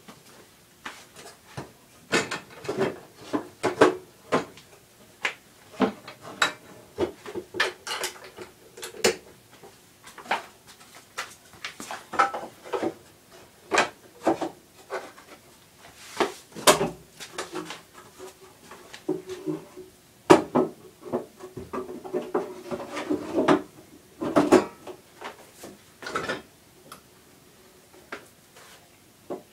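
Irregular knocks, taps and clatter of hard objects being handled, coming in quick clusters at times, with a faint steady hum underneath in places.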